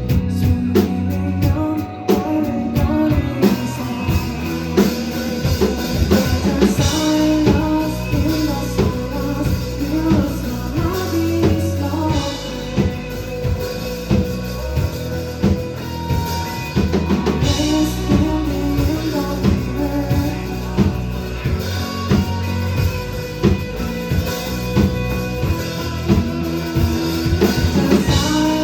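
A band playing a song live and loud: a drum kit beating a steady rhythm under sustained instruments, with singing.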